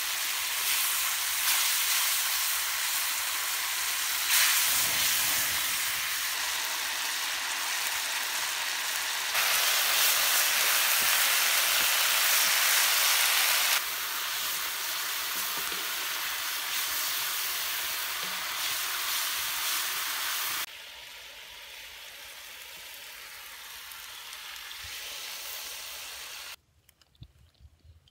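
Pieces of pork leg sizzling as they fry in an iron wok over a wood fire, stirred with a wooden spatula. The frying hiss changes level abruptly a few times, drops lower about three quarters of the way in, and falls to near quiet shortly before the end.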